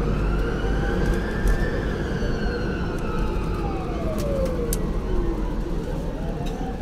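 Steady road and engine rumble inside a moving bus at speed, with a faint whine that slowly rises and falls in pitch.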